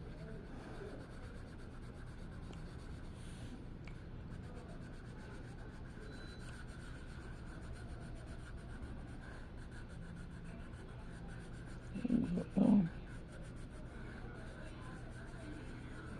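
Faint, steady scratching of drawing strokes on paper. About twelve seconds in, a short throaty vocal sound comes in two quick parts.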